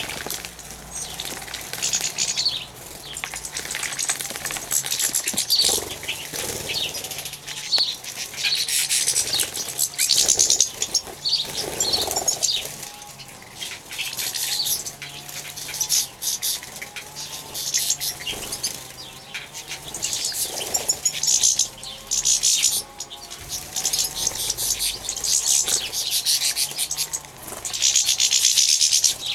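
European goldfinches and European serins bathing in a water trough: repeated short bursts of splashing as they flutter their wings in the water, with chirping calls between.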